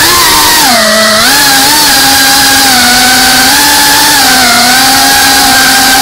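FPV quadcopter's brushless motors and propellers whining loudly, heard from the onboard camera. The pitch climbs at the start, drops about a second in, then holds steady with small wobbles.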